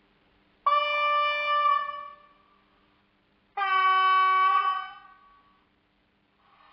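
Sound decoder in a Roco H0 model of an ÖBB class 1144 electric locomotive sounding its horn through the model's loudspeaker: two blasts, a higher tone then a lower one, each about a second and a half long. Near the end a steady hiss starts up.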